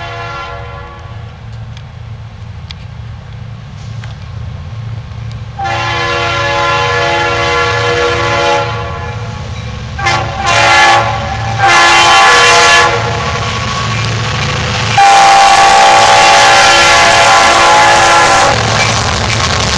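Leslie RS-3L three-chime horn on a Conrail EMD SD60I locomotive, sounded in a series of blasts: the end of one at the start, a long blast about six seconds in, three short toots from about ten to thirteen seconds, then a long, loudest blast from about fifteen seconds. Each blast is louder than the last as the train approaches. Under the horn runs the steady low rumble of the locomotives' diesel engines.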